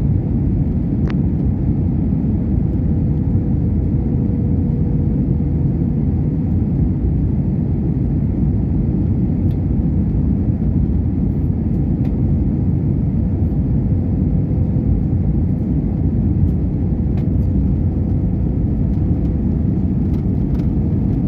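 Steady low rumble of jet airliner cabin noise from the engines and airflow, with a faint steady hum running through it.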